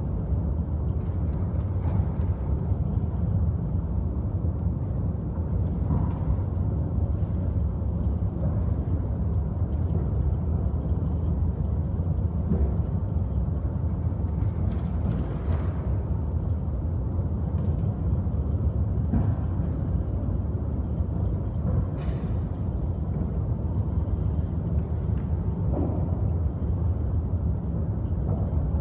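Rotating aircraft-hangar carousel turntable running: a steady low rumble, with a few faint clicks.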